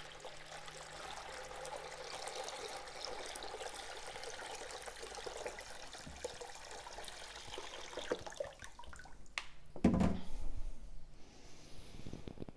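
Water pouring steadily from a watering can into a plastic tub, with a short louder thump about ten seconds in.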